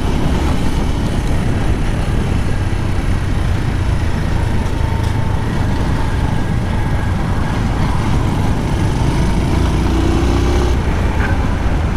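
Motorcycle ridden at steady city speed: a continuous rush of wind on the helmet-mounted microphone over the running engine and road noise.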